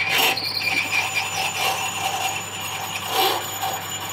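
Myford lathe running, its cutting tool scraping and grating in a brass workpiece over a steady motor hum, with louder swells just after the start and about three seconds in. The harsh noise goes with a slight wobble in the work.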